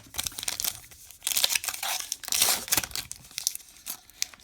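Wrapper of a baseball card pack being torn open and crinkled by hand, a run of crackling rips loudest in the middle.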